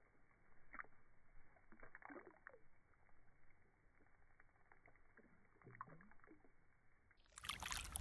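Faint, muffled water sloshing and splashing as hands let a fish go in shallow creek water. Near the end a louder hiss of noise cuts in.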